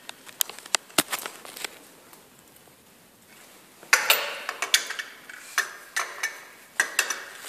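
A dog's claws clicking irregularly on a tile floor as it walks about. Near the middle comes a short rustle, as the dog's fur rubs against the microphone.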